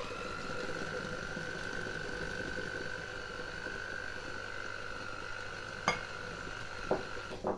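Handheld electric mixer running steadily with a high motor whine, its beaters working through a cake batter of flour, sugar and eggs. A sharp click about six seconds in, and the motor stops near the end.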